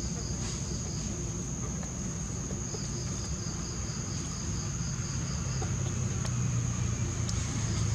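Insects droning with a steady high whine, joined by a faster pulsed insect chirp of about four pulses a second for a few seconds in the middle, over a low rumble that grows louder near the end.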